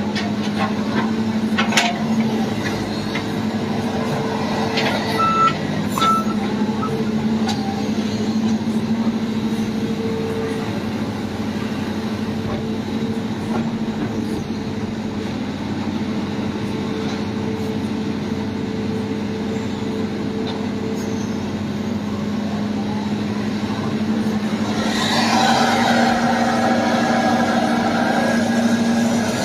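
Heavy diesel engine running steadily. A few knocks come in the first seconds, with two short high beeps about five seconds in, and a louder, rougher noise builds about 25 seconds in.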